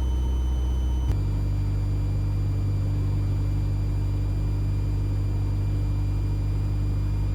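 Mooney M20E's four-cylinder Lycoming engine and propeller droning steadily in the cabin while flying the landing pattern. About a second in there is a small click, and the pitch pattern of the drone shifts and then holds steady.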